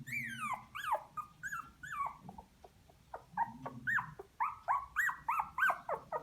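Three-week-old puppies whining and squealing in a string of short, high-pitched cries that come quicker and louder from about four seconds in.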